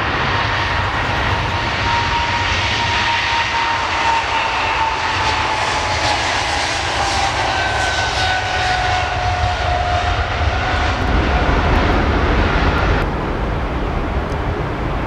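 Boeing 777-300ER's GE90-115B turbofans at takeoff thrust as the jet rolls past, a whining tone over the roar falling slowly in pitch as it goes by and deep rumble building as it passes closest. Near the end the sound cuts abruptly to a duller, lower rumble.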